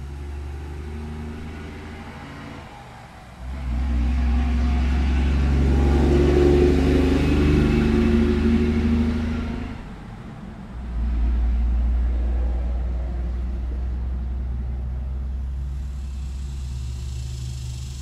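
Cars passing on a road with a deep rumble: one swells up about three seconds in, is loudest around the middle and fades out, then after a brief dip another comes through and slowly eases off. A faint high cicada buzz comes in near the end.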